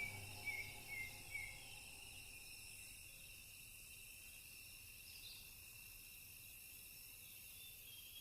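Faint, steady chorus of insects trilling, with four short chirps in the first second and a half.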